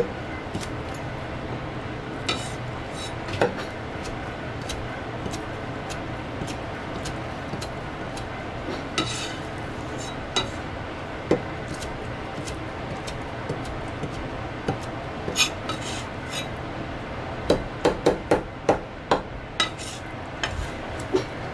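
Chinese cleaver chopping a soft pickled chili on a thick plastic cutting board: scattered single knocks of the blade on the board, then a quick run of about eight chops near the end. A steady hum runs under them.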